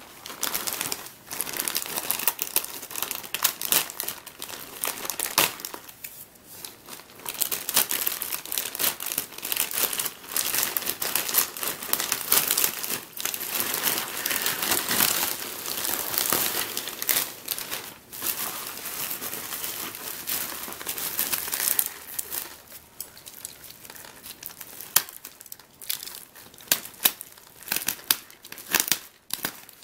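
Plastic postal mailer being opened and the plastic-wrapped contents handled: continuous crinkling and rustling of plastic with many small sharp crackles. It thins out to scattered crinkles after about twenty-two seconds.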